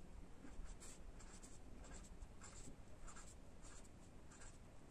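Felt-tip marker tip scratching on paper over a clipboard, drawing small circles and spirals in short, quick, faint strokes, about two or three a second.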